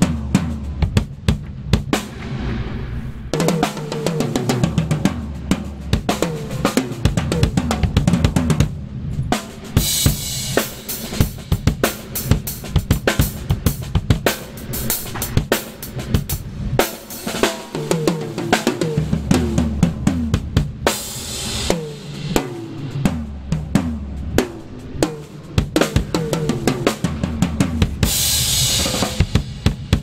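Groove Drum Co. walnut drum kit played in a busy groove: kick drum, snare and toms with hi-hat and Groove cymbals, with louder cymbal crashes about ten seconds in, around twenty seconds in and near the end. Low bass notes hold underneath, changing every few seconds.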